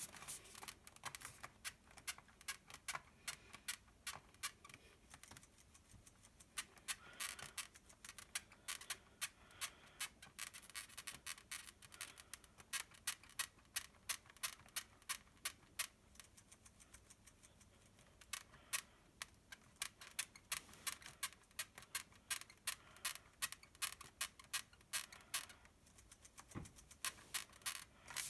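A 2015 15-inch MacBook Pro Retina making a squeaky noise: a long run of sharp, irregular high clicks and squeaks, several a second, with a short lull about two-thirds of the way through.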